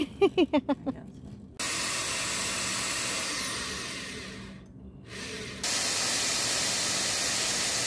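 Black+Decker electric drill pre-drilling pilot holes into a plywood cabinet panel. It runs for about three seconds and winds down, gives a short blip, then runs steadily again for about three seconds.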